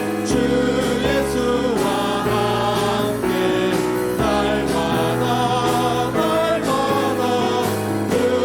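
A group of voices singing a Korean Christian praise song, with instruments holding steady bass notes underneath.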